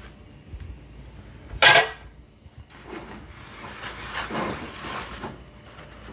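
A cast iron skillet clanks sharply against the gas stove's iron grate about a second and a half in, followed by a few seconds of scraping and rubbing in the pan.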